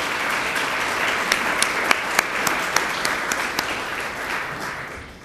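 Audience applauding: many hands clapping, dying away near the end.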